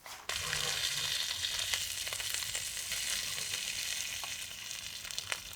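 Food sizzling in a hot pan. The sizzle starts suddenly just after the beginning, as if food was laid into hot fat, then runs on as a steady hiss with scattered crackles.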